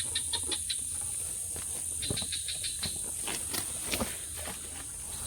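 Night insects chirring in a steady high-pitched drone, with scattered short clicks and chirps from other night creatures.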